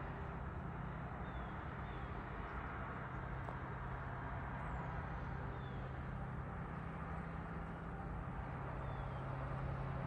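Rural early-morning ambience: a steady low mechanical hum, like distant engine or machinery drone, over a soft hiss. A few faint, short bird chirps come through it.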